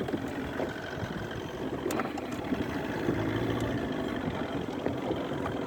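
Boat engine running steadily at low speed, with a sharp click about two seconds in.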